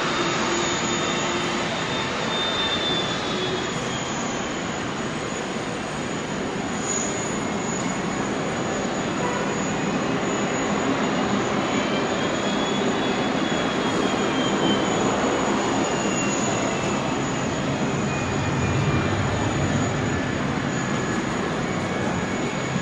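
Jet airliner turbofan engines running on the airfield, a steady rush of noise with a faint high whine that rises and falls in pitch.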